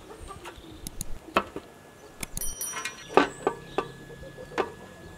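A plucked goose carcass being handled in an aluminium basin: a handful of sharp, irregular knocks and taps as the carcass and hands meet the metal.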